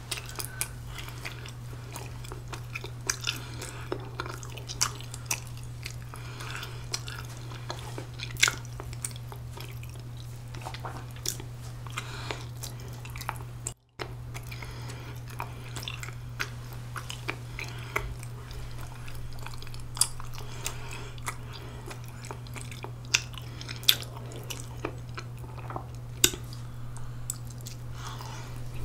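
Close-up chewing of chewy ramie-leaf rice cake (mosi-tteok), full of wet mouth clicks and smacks, with another bite taken near the end. A steady low hum runs underneath, and the sound cuts out for a moment about halfway.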